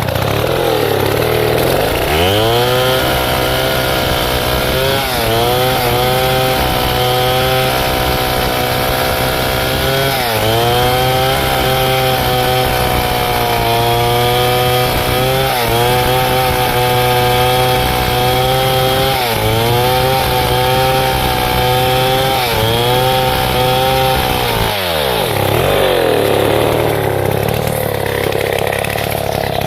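Stihl chainsaw at full throttle cutting through a teak trunk, its engine note dipping briefly several times as the chain bogs in the wood. Near the end it drops back to idle.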